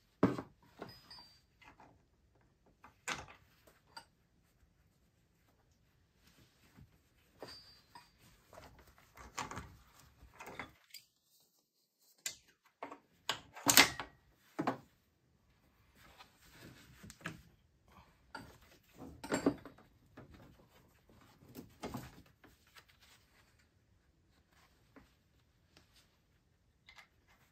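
Scattered clinks, clicks and knocks of hand tools on metal as a wrench works an AC refrigerant line loose from the compressor, with quiet stretches between; the loudest knock comes about halfway through.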